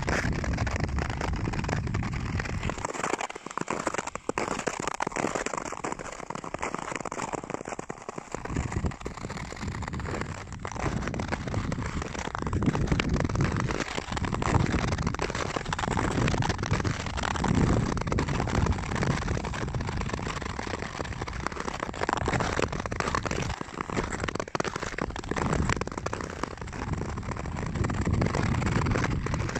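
Nordic skate blades scraping and crackling over snow-covered natural lake ice, with low rumbles of wind on the microphone coming and going every few seconds.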